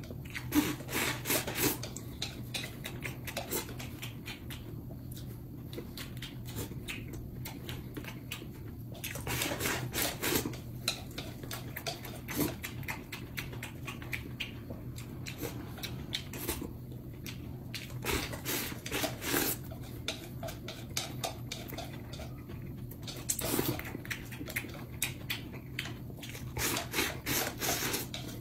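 Close-up eating sounds: chopsticks shovelling rice from a plate, with wet smacking chewing in bursts of quick clicks and pauses between mouthfuls.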